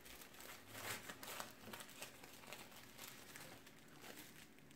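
Faint crinkling and rustling of a coat wrap being folded around a lock of a Yorkshire terrier's hair, in scattered small crackles.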